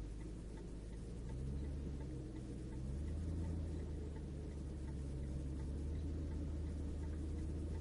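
Steady low road and engine rumble heard inside a car's cabin at freeway speed, growing a little louder about three seconds in, with faint, even ticking on top.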